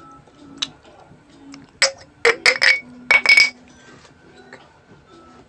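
A utensil clinking against a ceramic plate: a quick run of sharp, ringing clinks from about two to three and a half seconds in.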